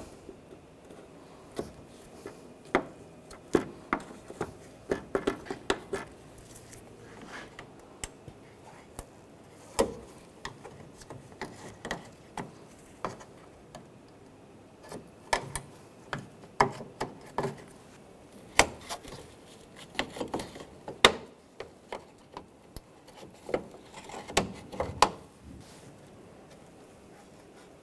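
Irregular plastic clicks, snaps and taps from a trim tool prying plastic push-pin retainers out of a car's radiator-support cover, with the loosened pins and plastic panel being handled. The clicks come in scattered runs with a few quieter pauses.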